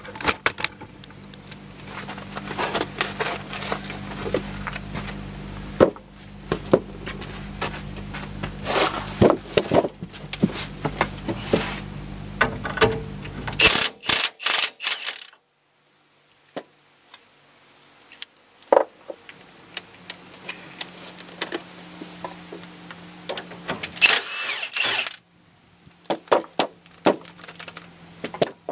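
Metal tools clinking and knocking on a van's front steering linkage (tie rods and idler arm) during disassembly, with a cordless impact wrench hammering in a short loud burst about halfway through and again, briefly spinning up, near the end.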